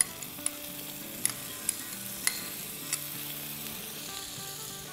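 Onion-tomato masala sizzling in a frying pan as yogurt is spooned in, with about six light taps of the spoon in the first three seconds. Soft background music with held notes plays underneath.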